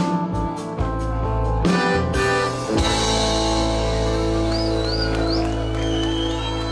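Live folk-rock playing on button accordion with a plucked string instrument: punchy rhythmic chord strokes, then about three seconds in the accordion holds one long final chord, with a wavering high whistle-like tone over it near the end.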